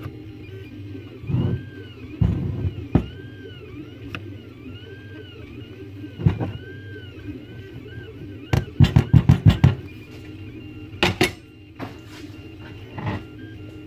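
Knocks and clicks from handling a large ring magnet near a small metal-chain seesaw on a desk, including a quick run of about six clicks midway. A steady low hum runs underneath.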